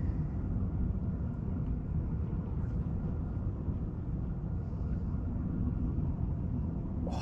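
Steady low rumble with no clear pitch, the kind that wind buffeting a microphone or distant engine noise makes.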